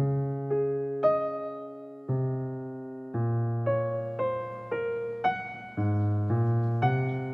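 Background piano music: single notes and chords struck about once or twice a second, each ringing and dying away.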